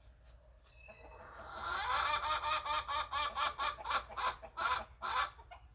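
Domestic hen cackling: a fast, loud run of repeated calls that starts about a second and a half in, after a few faint clucks.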